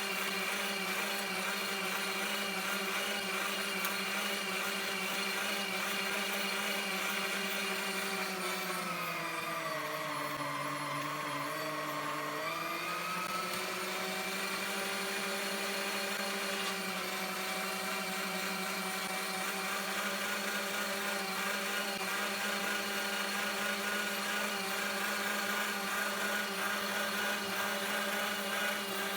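Hamilton Beach electric meat grinder's motor running with a steady hum as it grinds meat. Its pitch sags for a few seconds near the middle and then recovers.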